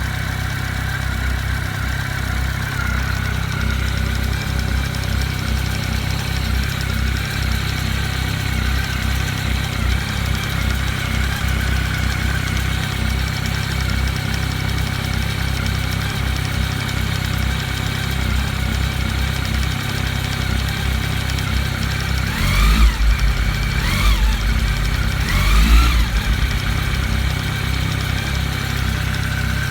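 Honda CB1300's liquid-cooled inline-four engine idling steadily, then revved briefly three times in quick succession near the end before settling back to idle.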